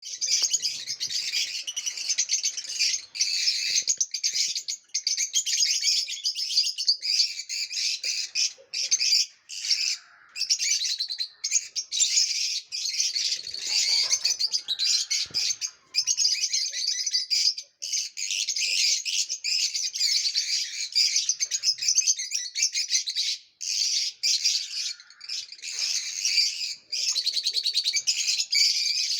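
Lovebirds chirping, a dense stream of rapid high-pitched calls with only brief pauses.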